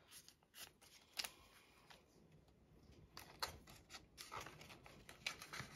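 Faint, scattered rustles and soft ticks of a paper bill and a plastic binder envelope being handled as cash is folded and tucked into the envelope.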